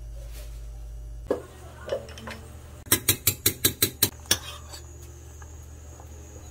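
Metal spoon clinking against a stainless steel pot while stirring doenjang into broth: two single knocks, then a quick run of about nine clinks in a second and a half.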